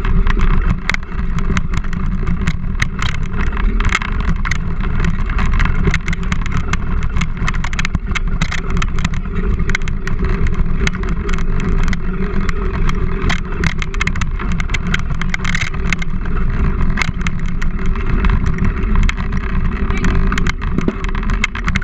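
Bike rolling fast over a dirt trail: a steady low rumble of tyres and wind, with frequent rattles and knocks from bumps in the ground.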